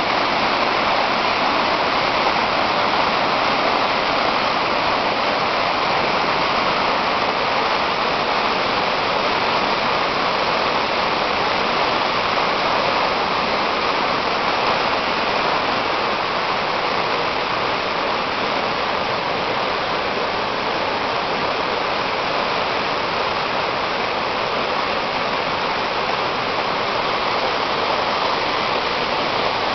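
A small river in flood, its muddy, fast floodwater rushing and churning in a loud, steady rush that never lets up.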